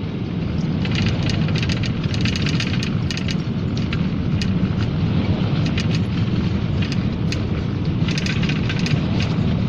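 Steady low road and engine rumble inside a GAZelle van's cab at highway speed, with scattered light rattles and ticks.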